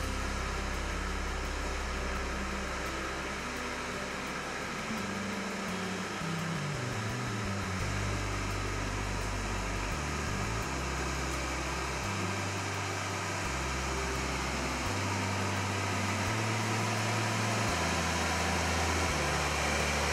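Case IH SPX4420 self-propelled sprayer's diesel engine running steadily as the machine drives, an even mechanical hum and rush.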